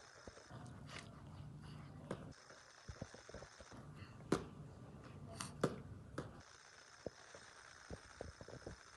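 Scattered light clicks and knocks over a quiet room background, with two sharper knocks about four and five and a half seconds in.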